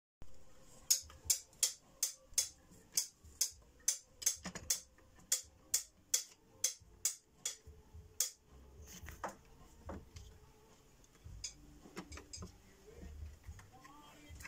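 A run of sharp, irregular clicks and taps, about two a second, as stained-glass pieces are knocked and fitted into lead came on the bench. After about eight seconds they give way to fainter, scattered knocks and handling sounds.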